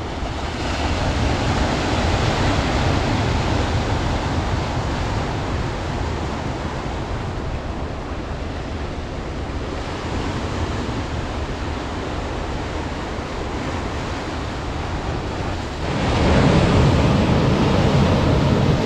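Ocean surf washing against a rocky shore, with wind on the microphone. A louder surge sets in near the end.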